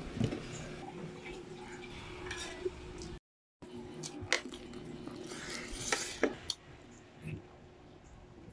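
Close-up mouth sounds of eating chicken feet: sucking and chewing the skin off the bones, with wet lip smacks and a few sharp clicks or clinks, over a steady low hum. The sound drops out briefly just after three seconds in.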